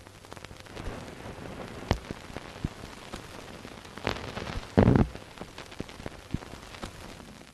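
Crackle of an old film soundtrack: a steady hiss with scattered clicks and pops, and one louder thump about five seconds in.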